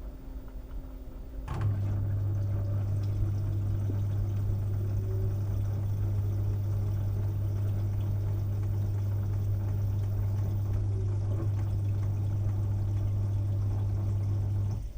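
LG washing machine's drain pump switching on with a click about a second and a half in, then humming steadily with water rushing through it, cutting off near the end.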